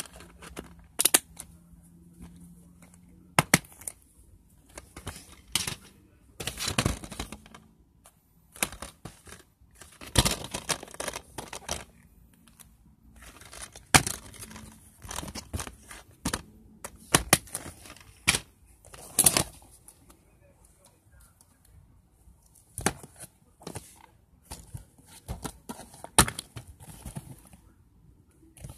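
Plastic DVD cases being handled: irregular clicks, knocks and rattles as cases are picked up and shuffled and a case is opened, with short rustles in between.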